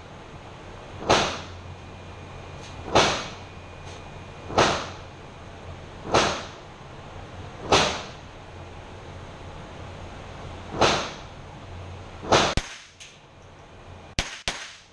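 .22 Long Rifle rifle firing a string of single shots, about one every one and a half seconds with one longer pause, each crack ringing briefly off the walls of an indoor range. A few fainter sharp clicks follow near the end.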